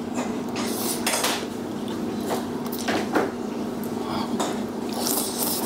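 Eating utensils clinking and scraping against bowls and dishes during a meal: a string of separate light clinks, over a steady low hum.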